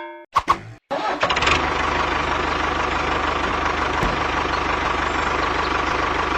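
An engine starts about a second in, after a couple of short clicks, and then runs steadily with a low, even throb.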